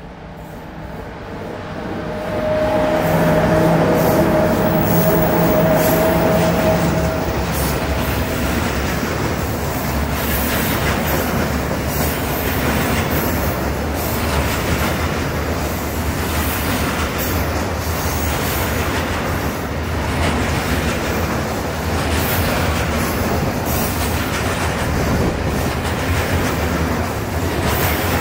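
HŽ series 1141 electric locomotive passing close, loudest in the first few seconds and with a steady hum. Behind it a long train of container wagons rolls by, wheels rumbling and clacking irregularly over the rail joints.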